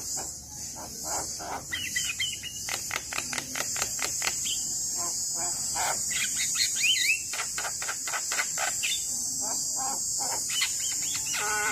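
Javan myna singing: fast runs of harsh clicks and chatter broken by short whistles that bend up and down, over a steady high-pitched buzz.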